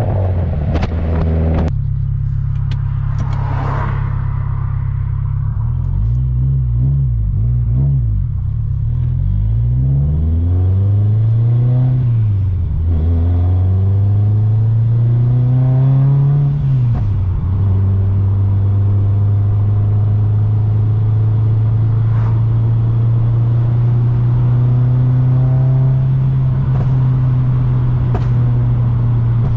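Exhaust of a heavily turbocharged Subaru STI flat-four, heard from the back of the car. The note runs steadily, swings up and down in pitch several times in the middle, climbs and drops sharply about two-thirds of the way through, then settles into steady running.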